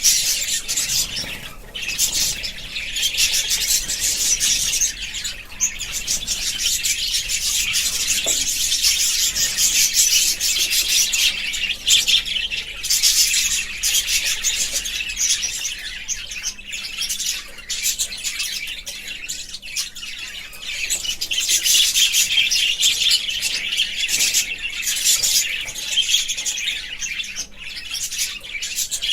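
Budgerigars chattering and chirping nonstop, many short calls overlapping into a dense warble.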